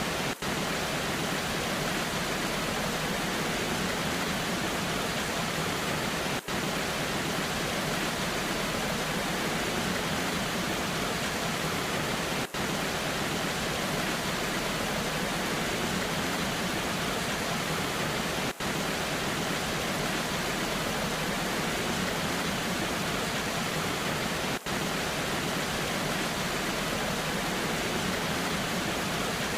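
Waterfall rushing in the rain: a steady, even roar of falling water, broken by a very brief dip about every six seconds.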